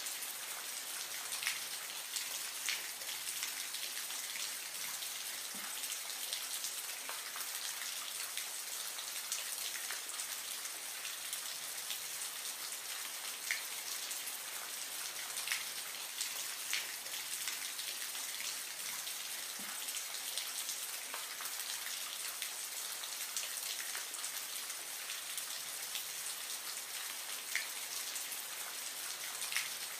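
Aquarium water trickling and splashing steadily, with scattered single drops.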